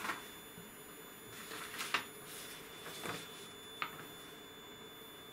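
Large paper schematic sheets rustling and crinkling as they are lifted and turned, in several short bursts, over a faint steady high-pitched tone.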